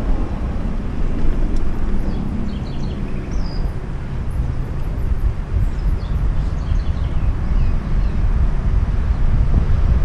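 Wind rumble on a bicycle-mounted action camera's microphone, mixed with tyre noise as the bike rolls along a cracked cycle lane. A few short high chirps come about two seconds in and again around six seconds.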